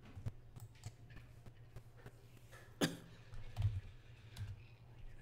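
Faint computer keyboard clicks as a short terminal command is typed, with one sharper key click near the middle. A few soft, low sounds follow just after it.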